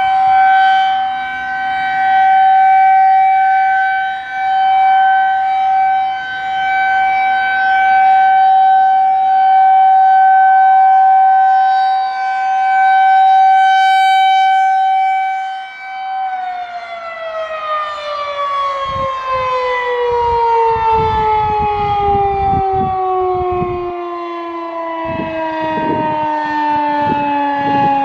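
Federal Signal 2001-SRNB electromechanical siren sounding a steady tone, its loudness swelling and fading as the rotating head sweeps past. About sixteen seconds in, the power cuts and the pitch falls smoothly as the rotor winds down.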